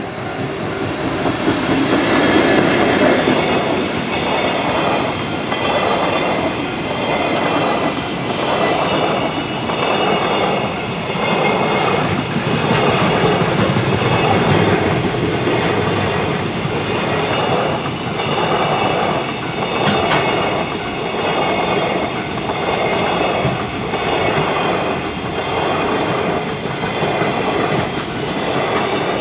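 JR Freight container train passing close by at speed, its wagon wheels clattering over the rail joints in a steady rhythm of about three pulses every four seconds. A level-crossing bell rings throughout.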